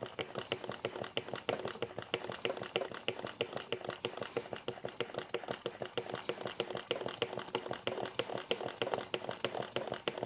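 Hand pump on a fluid bottle being worked to push transmission fluid up a hose into a ZF 6HP26 automatic transmission: a quick, even run of clicking pump strokes, about four or five a second.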